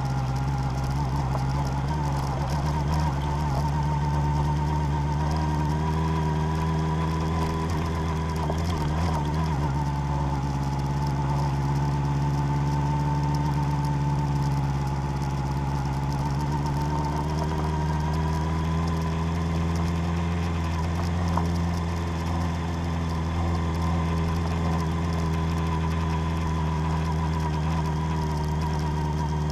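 Motor vehicle engine running steadily while driving an off-road track, its pitch drifting gently up and down.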